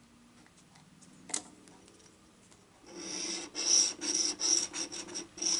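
Coating of a scratch-off lottery ticket being scraped off in quick, rasping strokes, roughly three a second, starting about three seconds in. A single light tap comes before it.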